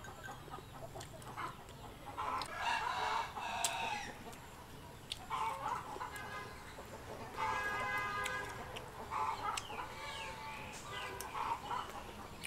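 Chickens clucking in several short bouts, with a rooster crowing once a little past halfway.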